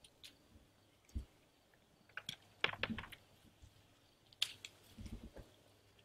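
Pomegranate branches and leaves rustling and fruit stems snapping as pomegranates are picked by hand from the tree: scattered sharp clicks, with a quick cluster a little before the middle and a few soft low thumps.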